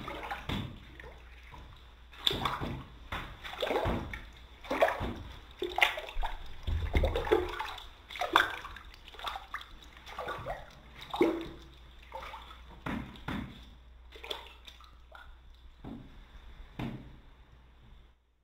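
A hand swishing and sloshing through the water of a filled bathtub, in irregular splashes, growing softer near the end.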